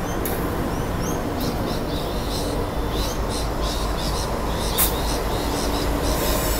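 NR-class diesel-electric locomotives (GE Cv40-9i) idling, a steady loud engine rumble, with small birds chirping repeatedly over it and one sharp click a little after the middle.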